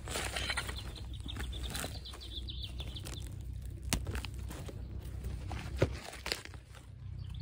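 Hand weeding: leaves rustling and a small hand weeding tool digging and scraping through soil, with two sharper clicks in the second half.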